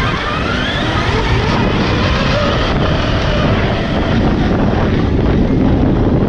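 Heavy wind on the microphone over the motor of a large electric RC car, whose whine rises in pitch in the first second or so as it speeds up.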